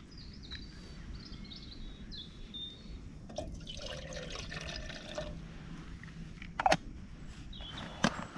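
A small amount of water poured into a small camping steamer pot, a short trickle lasting a second or two about halfway through. Two sharp knocks follow near the end.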